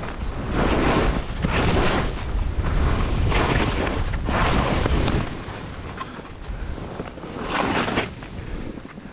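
Skis turning on steep snow: a series of swooshes as the edges scrape through each turn, with wind buffeting the microphone. The buffeting eases after about five seconds.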